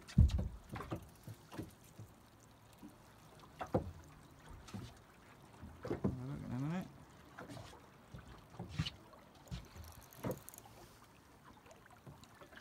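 Knocks and bumps aboard a small fishing boat at sea over faint water noise, with a heavy low thump right at the start. About halfway through there is a short pitched sound that rises and falls.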